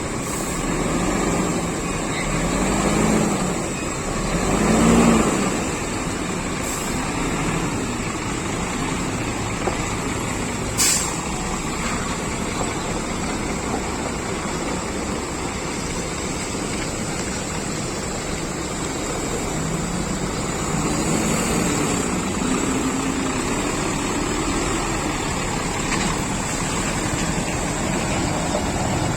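Lorries running in street traffic, with a short air-brake hiss about eleven seconds in. Low tones slide up and down twice, near the start and again about two-thirds of the way through.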